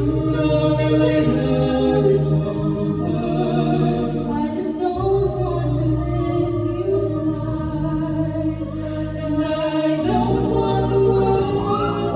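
High school a cappella group singing sustained chords in close harmony over a deep vocal bass line, with sharp vocal-percussion hits about once a second.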